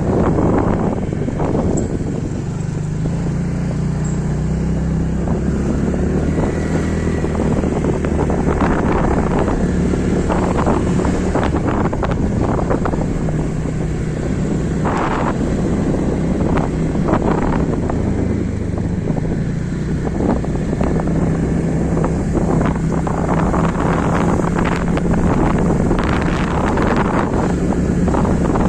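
A vehicle's engine running steadily, a low hum that shifts slightly in pitch, under heavy wind buffeting on the microphone.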